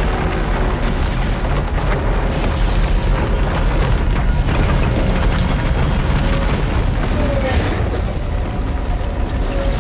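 Film sound design of an earthquake: continuous deep rumbling with repeated impacts, mixed under dramatic score music.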